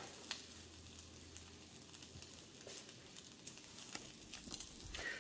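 Faint sizzling of an egg frying in a nonstick pan on a canister camp stove, with a few light clicks.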